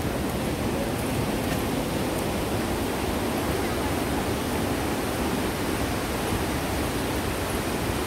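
Waterfall rushing steadily, an even wash of noise with no pauses.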